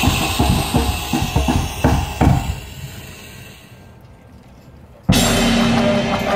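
Marching band percussion playing a run of drum hits for about two seconds, then fading into a quiet stretch. About five seconds in, the full band comes in suddenly and loudly with sustained brass chords.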